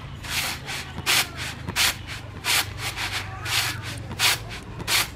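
Dry urad dal grains swishing and rattling across a bamboo winnowing tray as it is tossed over and over, a burst of rustle about every three-quarters of a second.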